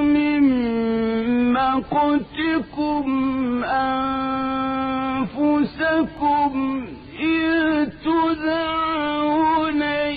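Solo male Quran recitation in the melodic style, sung in maqam Ajam: long held notes with ornamented glides between them, broken by a few short breaths.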